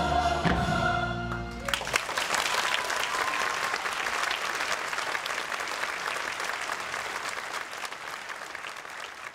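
A youth chorus and small orchestra hold the final chord of an opera; about two seconds in, the music stops and audience applause breaks out, fading slowly.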